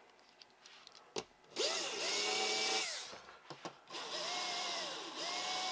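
Small electric motor of an HO-scale slot car whining under throttle. The pitch rises, holds for about a second and falls away, then comes up again about four seconds in, dips briefly and settles into a steady whine.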